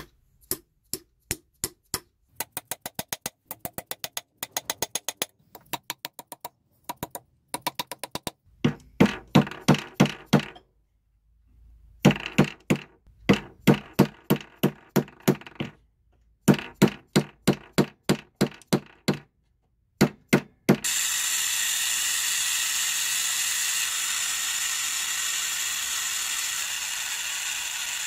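A white plastic-headed mallet taps a silver ring band in runs of quick light strikes, then in heavier groups of about three blows a second, shaping it on a steel ring mandrel and a bench block. About 21 s in the tapping stops and a gas torch flame starts with a steady hiss, heating the ring.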